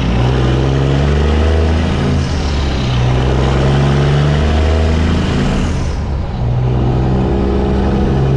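Semi truck's diesel engine running while the truck drives, heard from outside the cab with rushing air noise. The engine note shifts pitch a few times, and the hiss dies away about six seconds in.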